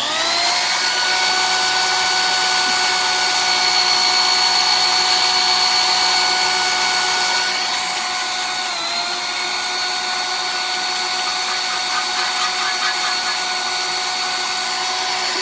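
A 1/2-inch electric drill driving a wire-stripping machine starts suddenly, winds up to speed and runs steadily with a whine, its pitch dipping briefly about nine seconds in as it strips copper wire.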